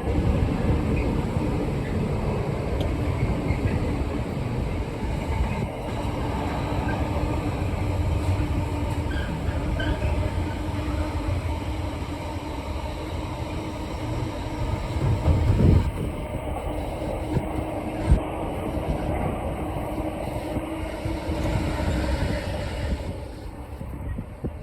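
A diesel train passing through the station, with a rumble of wheels on rail and a steady engine hum, dropping away near the end.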